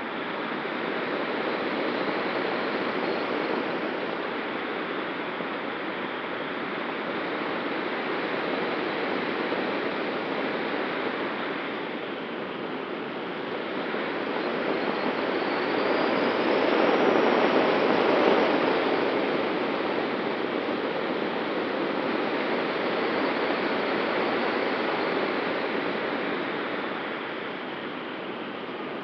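Wind noise from the airflow over a camera mounted on the wing of an ASW 19 glider in flight: a steady rush that swells louder about halfway through, with a faint whistle rising in pitch just before the loudest part.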